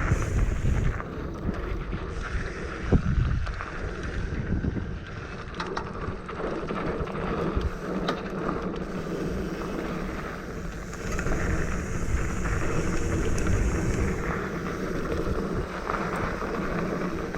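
Mountain bike riding down a dirt trail: wind buffeting the microphone over a low rumble of tyres on dirt and the rattle of the bike, with a sharp thump about three seconds in.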